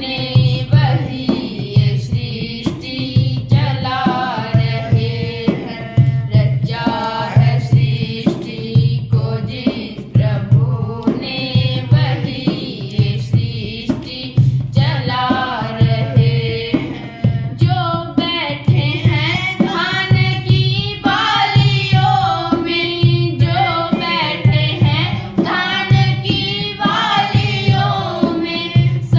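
A woman singing a devotional Hindi song (bhajan) with ornamented, gliding melodic lines over a steady tabla-like drum beat.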